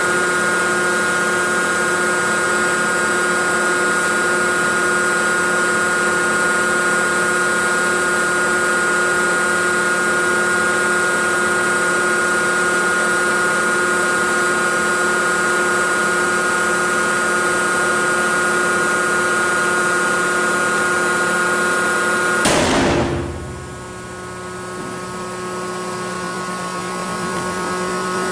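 Hydraulic tensile testing machine running with a steady, multi-toned whine while it pulls a D36 rebar coupler joint. Near the end comes a single sharp bang as the bar gives way under tension. The machine noise then drops and slowly builds again.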